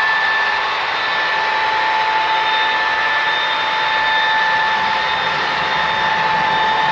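Model train running past on its track: a steady rolling noise of many freight cars' wheels, with a steady high whine on top.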